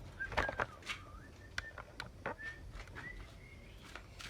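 A person whistling a wandering tune, over several sharp clicks and knocks, the loudest in the first second.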